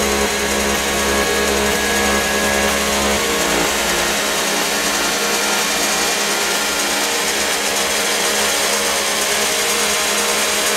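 Electronic dance music from a DJ mix, with a dense hissing noise layer over the track. The bass drops out about three and a half seconds in.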